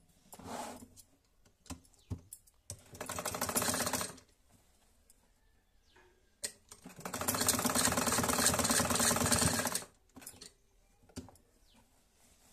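Black 'Modern' straight-stitch sewing machine running in two bursts, one of about a second and a later one of about three seconds, with a fast, even clatter of the needle mechanism as it stitches a shoulder seam. A few separate clicks come from handling the machine and fabric between the runs.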